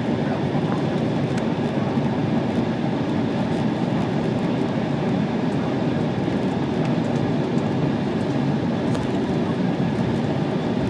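Steady cabin noise of an Embraer E190 taxiing, its GE CF34 turbofan engines running at taxi power, heard from inside the passenger cabin.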